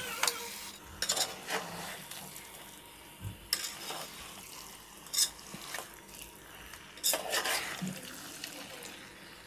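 A metal spatula scrapes and stirs chicken pieces and spice masala around a metal pot as they are fried dry (bhuna), with scattered scrapes and knocks against the pot over a soft steady sizzle.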